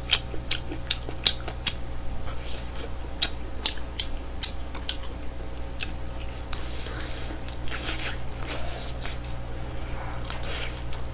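Close-miked eating of smoked chicken: biting and chewing meat off the bone, with many short wet mouth clicks and smacks and a few brief rustles, over a low steady hum.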